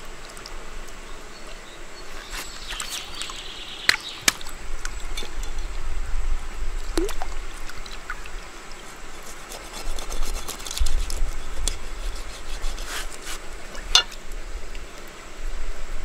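Stream water splashing and trickling as a fish is scaled and rinsed in the shallows, with scattered sharp clicks and scrapes of a blade on the fish, the loudest about four seconds in and again near the end.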